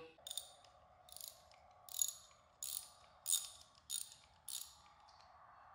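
Small metal and plastic parts being handled and fitted onto a Stihl FS76 trimmer's engine during reassembly: about seven short, faint clicks and rattles, roughly one every half second.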